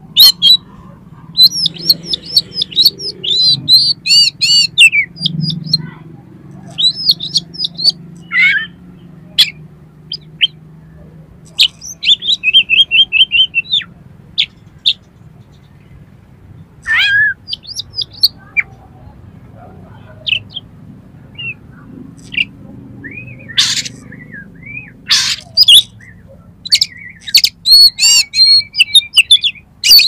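Oriental magpie-robin singing a loud, varied song packed with mimicked phrases: bursts of repeated sharp notes, fast runs of the same note and short whistled trills, broken by pauses of a second or two.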